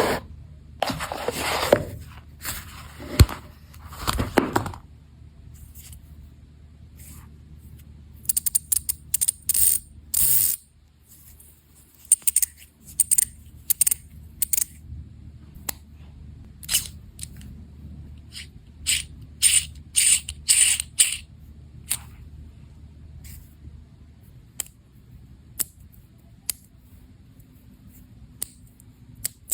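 Fidget spinner gadget being handled: irregular clicks and short scraping, ratcheting bursts, busiest in the first few seconds and again near the middle.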